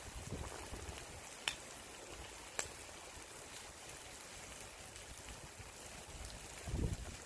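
Outdoor ambience: a steady hiss with wind buffeting the microphone in low gusts, strongest near the end, and two sharp clicks about a second apart.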